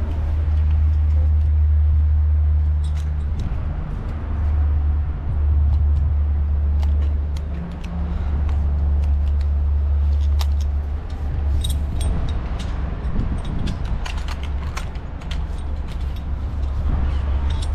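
Wind buffeting the microphone: a loud low rumble that swells and dips, with scattered light clicks and clinks over it.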